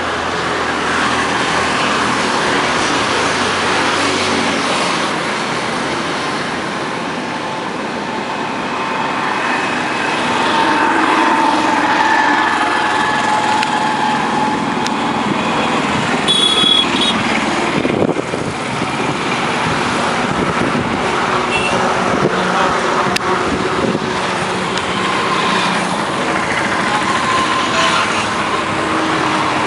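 Road traffic passing steadily on a bridge: vehicle engines and tyres, with a short horn toot about sixteen seconds in.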